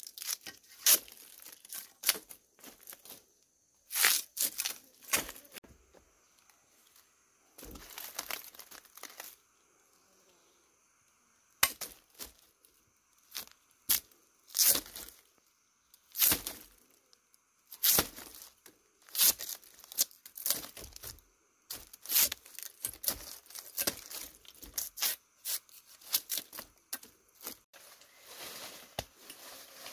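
An irregular run of sharp cracks and tearing noises, coming in clusters with short pauses between them, over a faint steady high tone.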